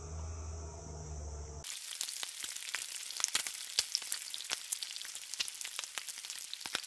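Bacon sizzling on a flat-top griddle, a dense crackle of sharp pops from spitting fat that starts abruptly about a second and a half in. Before it, a steady low hum with insects buzzing.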